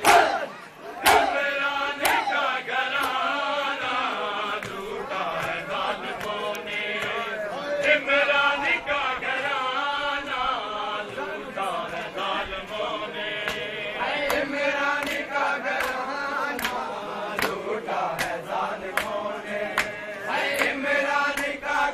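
Large group of men chanting a lament in unison, cut by sharp slaps of hands on bare chests in matam, the chest-beating of mourning. Two loud slaps fall in the first second or so, and many lighter ones come in the second half.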